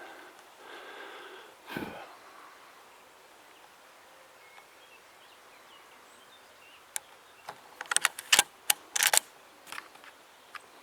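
Faint birdsong over quiet countryside, with a single short thump about two seconds in. Near the end a quick run of sharp clicks and rattles close to the microphone, the loudest sounds here, then a couple of lighter clicks.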